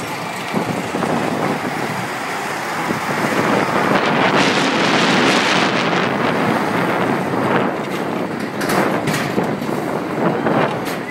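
Small steel roller coaster car running along its track, wheels rumbling, with wind buffeting the phone's microphone; the noise grows louder about four seconds in, with a few sharp knocks near the end.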